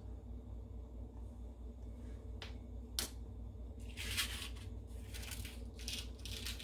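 Small handling noises over a low steady hum: two sharp clicks, then a couple of seconds of crinkling rustle from about four seconds in as a paper cupcake liner is handled.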